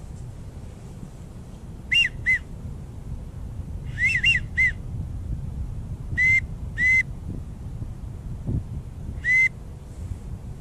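Wigeon duck whistle blown in short groups of two or three arched, high whistled notes, a group every two seconds or so, over a steady low rumble of wind.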